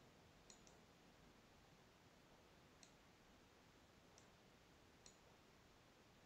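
Faint computer mouse clicks as chess moves are played: about five sharp clicks, including a quick pair about half a second in, over near-silent room tone.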